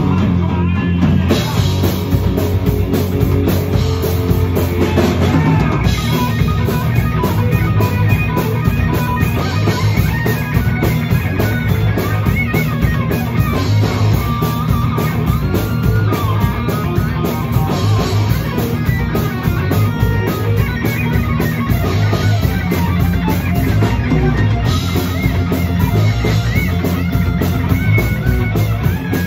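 Rock music: electric guitar over a drum kit, playing steadily throughout.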